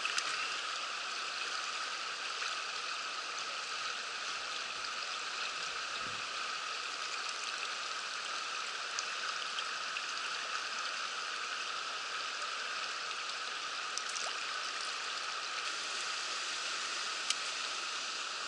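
Mountain stream water rushing steadily over rocks, an even hiss with a few faint brief ticks.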